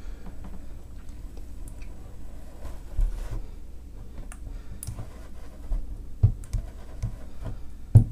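Plastic-welding iron tip and plastic filler rod scratching and tapping on a plastic bathtub as melted plastic is worked into a crack, with scattered faint clicks and a few dull knocks, the loudest near the end.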